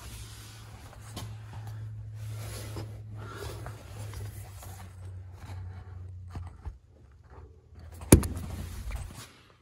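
Rustling and scraping handling noise from a handheld camera being moved around under a car, over a steady low hum, with one sharp knock about eight seconds in.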